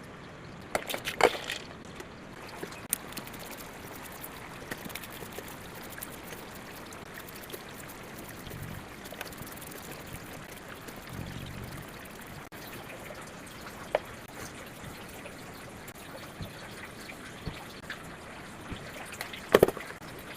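Water trickling steadily, with a few sharp clicks: a cluster about a second in, single ones later, and the loudest cluster near the end.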